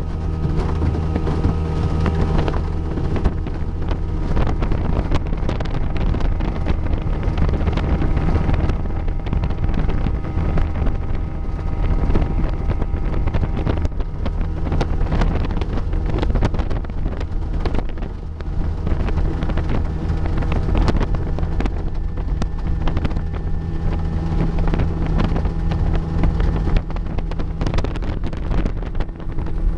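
1974 Mercury 402 40 hp two-stroke twin outboard running steadily as the wooden runabout cruises, with wind buffeting the microphone.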